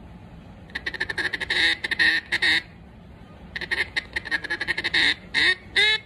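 Duck call with a Bois d'Arc insert, blown in two runs of rapid, clipped feed-call chatter and then two short quacks near the end, test-blown as the insert is tuned.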